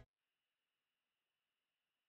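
Near silence: the background music cuts off right at the start, leaving only a very faint steady hiss.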